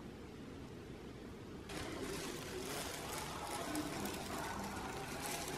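A low steady rumble, then from about two seconds in, thin disposable plastic gloves crinkling and rustling as they hold a kitten's head.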